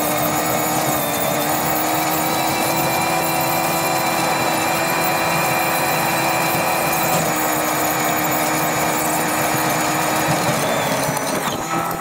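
A Massey Ferguson 5713S tractor runs steadily under load, pulling a Kverneland EM85 reversible plough through the ground. The engine drone has a steady high whine over it.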